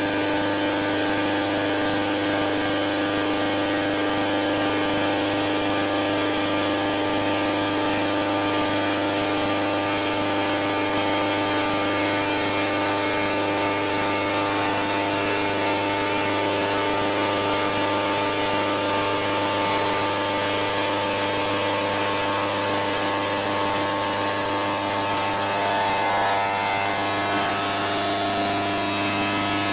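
CNC stone router spindle running at a steady speed while machining quartz stone: a continuous, even whine with several steady tones over a grinding hiss.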